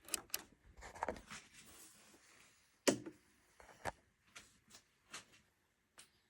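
Hands working on hardware: a soft rustle, then about six separate sharp clicks and knocks.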